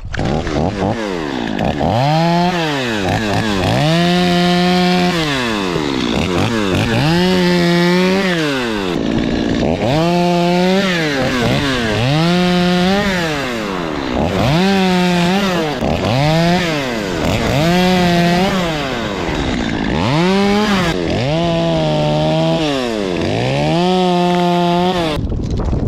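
Two-stroke chainsaw revved up to full speed and let back down to idle again and again, about every two seconds, as it cuts branches from a pine tree.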